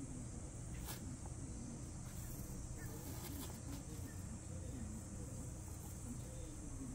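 Steady low background hum with a few faint clicks as metal tweezers dig cuttings out of a tray of granular rooting medium.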